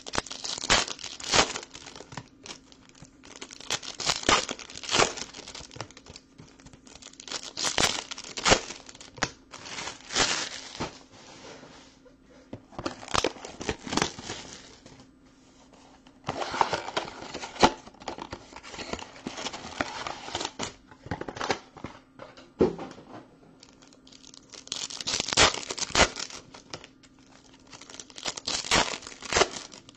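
Foil baseball-card pack wrappers crinkling and being torn open, in repeated bursts of rustling with short pauses between them.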